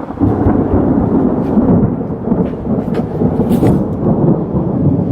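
Thunder rumbling loudly close by in a thunderstorm, breaking out just after the start and rolling on without a break.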